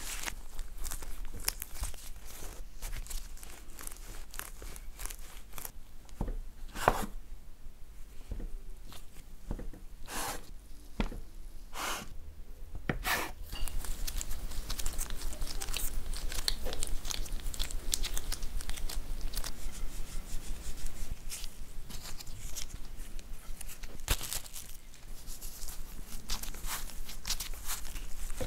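Gloved hands working yeast doughnut dough on a wooden board: kneading, tearing it into pieces and rolling them into balls, a close run of soft squishes, tears and light taps, with a few sharper thumps on the board a third of the way through.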